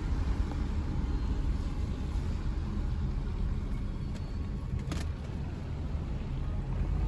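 Steady low rumble of a car driving, with one brief click about five seconds in.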